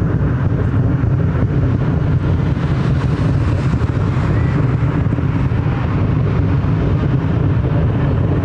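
Fireworks heard from a distance, many shells bursting at once so the booms run together into a loud, steady rumble with crackling through it.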